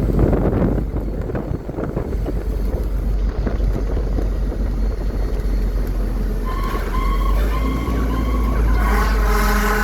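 Fire engine under way with a steady low engine and road rumble; about six and a half seconds in, its siren starts sounding in short, steady-pitched repeated notes that grow fuller near the end.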